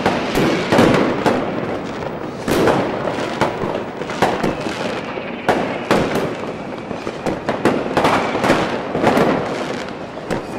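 Aerial fireworks shells bursting in quick succession: many sharp bangs, a second or so apart, over continuous crackling and rumble.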